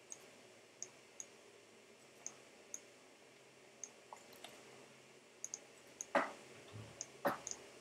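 Faint, scattered clicks of a computer pointing device as a shape is selected and dragged on screen, about a dozen at irregular intervals, with two louder sharp clicks near the end.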